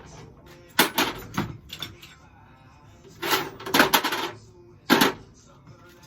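Several short clanks and clatters of small hardware parts being handled and set down, with a dense cluster of them in the middle and a last single knock about five seconds in.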